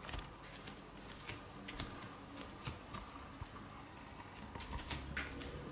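Light, irregular clicks and taps of Bengal kittens' claws and paws on a hard tiled floor close to the microphone, a few a second, with a low hum coming in near the end.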